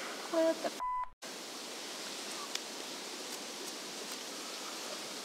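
A short, pure electronic beep about a second in, set in a moment of dead silence where the audio has been cut. After it comes a steady outdoor background hiss.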